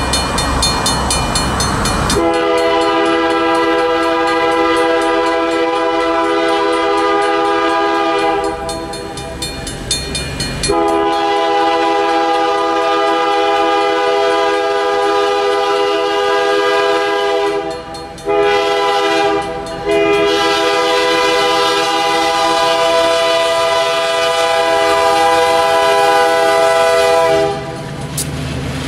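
Diesel locomotive's multi-chime air horn blowing two long blasts, a short one and a final long one: the long-long-short-long grade-crossing signal. It starts about two seconds in, after a moment of engine and wheel noise.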